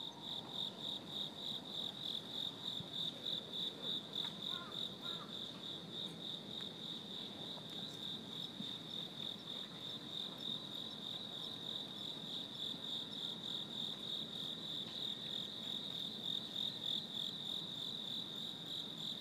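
Crickets chirping in a steady, even pulsing trill, a few pulses a second, over a faint low background hum of outdoor air.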